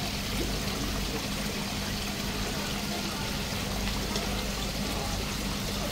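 Water steadily trickling and splashing into a koi pond, with a steady low hum underneath.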